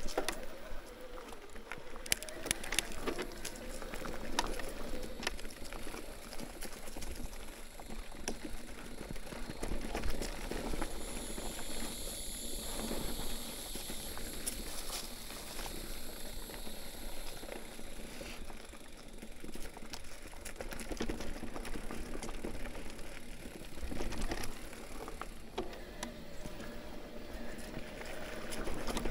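Mountain bike riding over a dirt trail: tyres running over loose dirt and rocks, with frequent short knocks and rattles from the bike over bumps.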